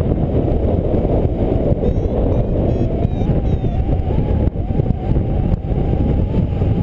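Wind buffeting the camera microphone of a paraglider in flight: a loud, unsteady rush of deep noise.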